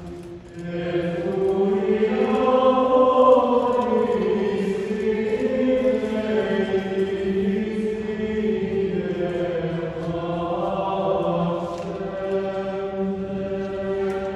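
Choir singing a slow chant with long held notes that rise and fall, after a short pause between phrases at the start.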